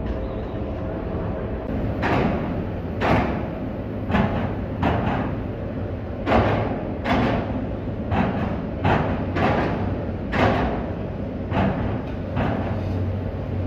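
Vehicles rolling off a ferry's car deck over the steel ramp, their tyres knocking the metal plates with a run of heavy clanks, often in pairs, about every second. A steady low rumble lies underneath.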